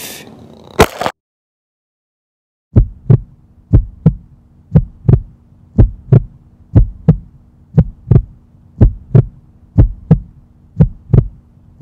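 A sharp click about a second in, then a heartbeat sound effect: paired low thumps, lub-dub, about once a second over a steady low hum.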